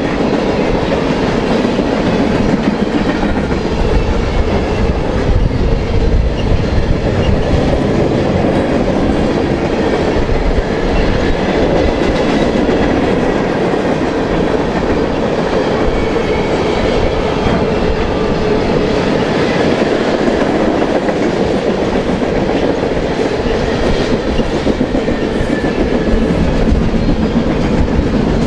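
Freight cars of a BNSF manifest train rolling past: a steady rumble and clatter of steel wheels on the rails, with clickety-clack over the rail joints.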